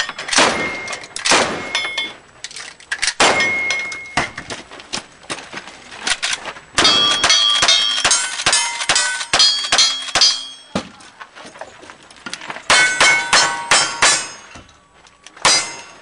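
Pistol shots at steel targets, the plates clanging and ringing after hits. The shots come in spaced single reports and then two quick strings of many hits, starting about seven and about thirteen seconds in.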